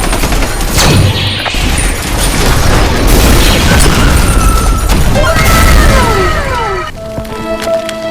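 Loud crashing and booming sound effects over music, with sharp impacts in the first half. About five seconds in, several tones fall in pitch together, and near the end steady held musical notes take over.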